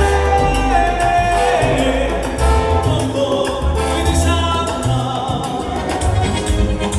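Salsa-style Latin music with a singing voice and heavy bass, played live through the LD Systems DAVE 12 G4X column PA system.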